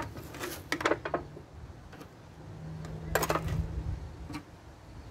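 Dishes and kitchen utensils clattering: a cluster of quick knocks and clinks about half a second to a second in, and another about three seconds in.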